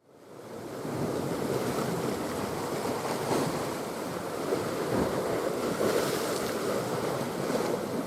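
Steady sea surf with wind buffeting the microphone, fading in over about the first second.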